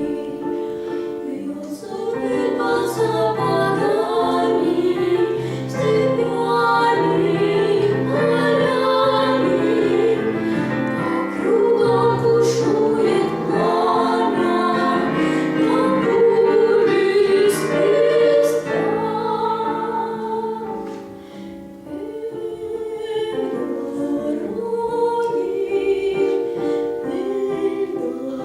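A vocal duet singing with instrumental accompaniment, in long held notes, with a short softer passage about two-thirds of the way through.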